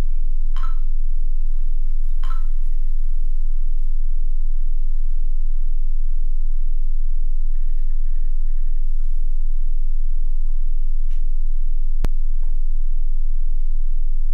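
Steady low electrical mains hum, the loudest thing throughout, with a few faint short beeps and blips over it and a sharp click about twelve seconds in.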